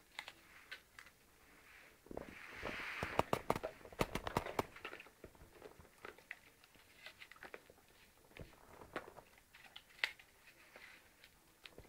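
Shar pei biting and chewing an apple slice: crisp crunching clicks, loudest and densest in a burst from about two to five seconds in, then sparser bites and wet mouth clicks.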